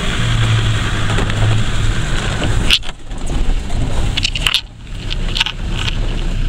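Land Rover running over a rough off-road track, heard from inside the cabin: a steady low engine drone with sharp knocks and rattles as the body jolts, about three seconds in and several more between four and six seconds.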